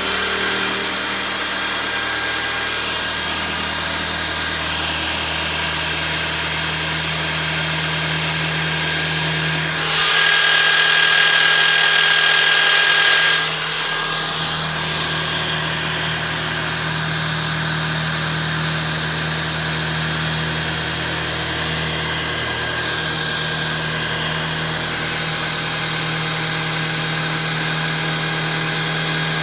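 600-watt corded electric drill running steadily, driving a drill-powered Wolfcraft transfer pump that is pumping diesel. About ten seconds in, the sound gets louder and hissier for some three seconds, then settles back to the same steady run.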